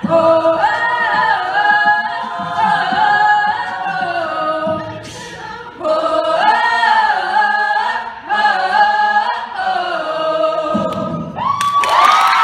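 Mixed a cappella choir singing in close harmony into microphones, the voices easing off briefly midway and then rising to a held final chord. The audience starts cheering just before the end.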